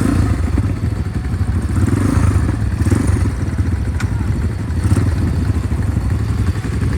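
Small pit bike engines idling steadily after being kick-started, warming up.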